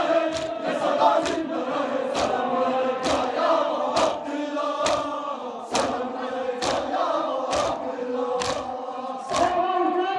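A crowd of men chanting a lamentation (noha) in unison, with the rhythmic strikes of collective chest-beating (matam), about two a second.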